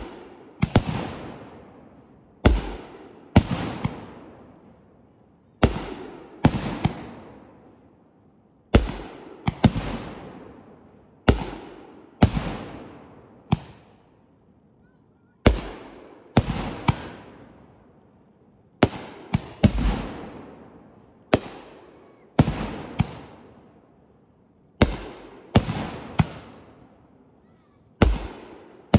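Hands of Time consumer fireworks cake firing shot after shot: deep launch thumps and sharp bursting bangs, a group of two or three every two to three seconds, each trailing off in a long echoing rumble.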